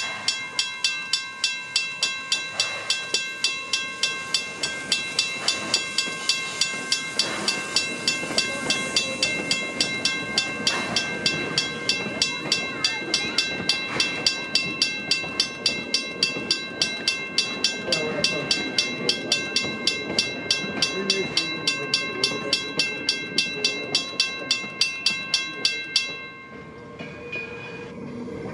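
Edison steam locomotive running, with a steady rapid beat of about three strokes a second over ringing metallic tones; the beat stops suddenly near the end.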